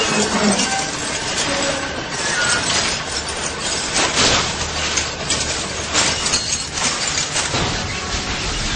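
Car-crash noise: a string of sudden impacts with glass clinking and shattering over a steady noisy din.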